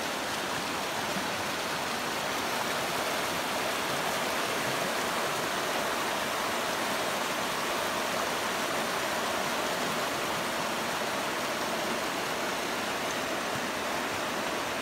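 Shallow, rocky mountain river running over stones: a steady rush of water.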